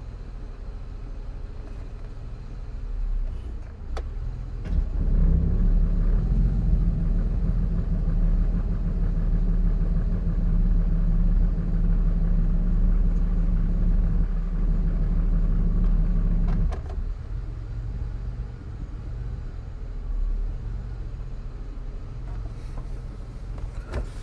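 Ford Escape 3.0 V6 running at a rough, uneven idle. About five seconds in the engine speeds up and runs louder and steadier for about twelve seconds, then drops back abruptly to the low uneven idle. The fluctuating idle rpm is the fault the owner is chasing, with the oil pressure light flickering as the rpm dips.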